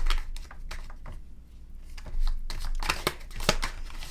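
A deck of tarot cards being shuffled and handled, a run of quick papery card clicks and flicks that come thicker about two and a half seconds in.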